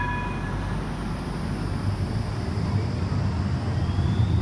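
Low rumble of Bombardier Flexity trams in an underground station. The last of a multi-note electronic chime dies away in the first second, and a faint rising whine of a tram's electric traction motors comes in about halfway through.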